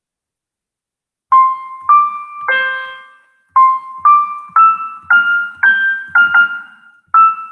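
Soundtrap software piano playing a simple practice melody one note at a time, starting about a second in. The high notes step up the scale and then back down, roughly two notes a second, with one note held longer near the start.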